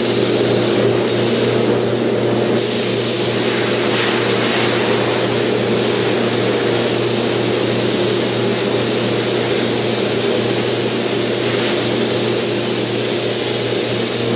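Compressed air hissing steadily from a gravity-feed paint spray gun as sealer is sprayed onto plastic rocker panel covers, over a steady machine hum.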